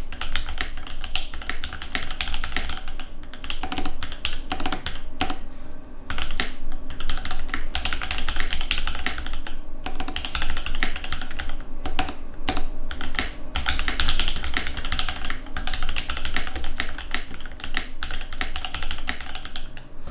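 Fast typing on a TX-HJ75 custom mechanical keyboard with lubed Alpaca linear switches and PBT keycaps: a dense, continuous stream of key clacks at about 74 words per minute, broken by a few short pauses.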